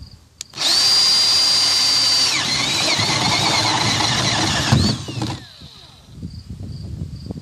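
Power drill with a 1-inch bit boring through a plastic kayak deck, one of a ring of holes for a hatch opening. The motor starts about half a second in with a loud steady whine, the pitch drops and wavers partway through, then it stops near five seconds in and winds down with a falling whine.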